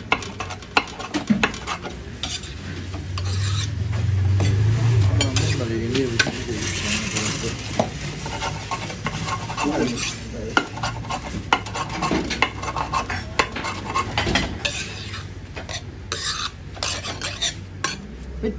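Wide steel chopping blade cutting flaky meat pastry on a marble board: many irregular sharp knocks of blade on stone, over a low steady hum.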